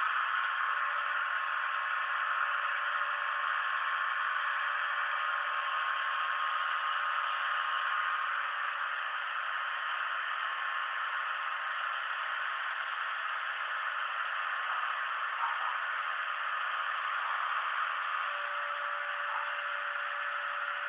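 Homemade CNC machine cutting a black plastic part: a steady whirring, rattling machine noise with a steady whine running through it, easing slightly about eight seconds in.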